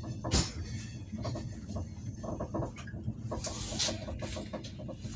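Inside a moving train carriage: a steady low rumble with scattered knocks and rattles, and a brief hiss a little past the middle.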